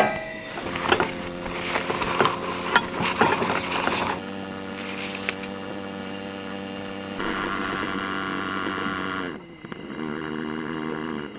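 Clicks, clinks and rustling of coffee things being handled, then the hiss of gas from a two-burner camping stove as its knob is turned. Soft background music with slow held chords runs underneath.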